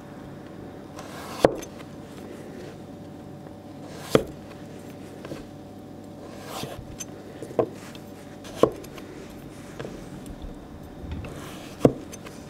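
A kitchen knife slicing carrot on a wooden cutting board: a sharp knock each time the blade goes through and meets the board, about six cuts at uneven intervals of one to three seconds.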